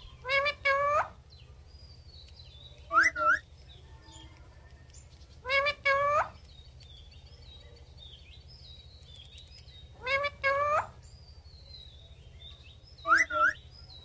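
Indian ringneck parakeets calling: short rising squawks, mostly in pairs, repeated about five times a few seconds apart, with fainter chirps in between.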